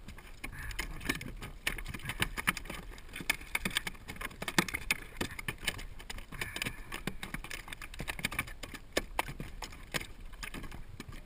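Irregular clicks, taps and knocks of a landing net and fishing gear being handled against a plastic kayak.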